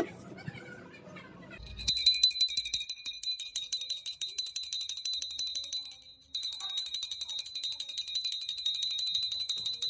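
Small brass puja hand bell (ghanti) rung rapidly and continuously, a bright clattering ring. It starts about two seconds in and breaks off briefly about six seconds in.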